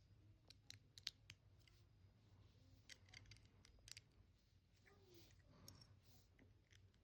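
Faint, scattered clicks of small plastic LEGO pieces being handled and pressed together, some in quick little clusters.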